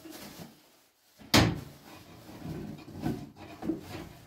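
Household things handled on the floor: one sharp knock about a second and a half in, with softer clattering and rustling around it.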